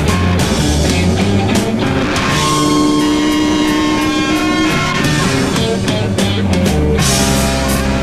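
Rock music with electric guitar and drums; the guitar holds long notes for a couple of seconds in the middle, where the drum strokes thin out.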